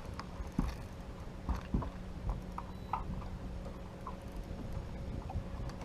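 Scattered, uneven knocks and taps from handling gear on a fishing boat while a bass is being fought, over a steady low hum.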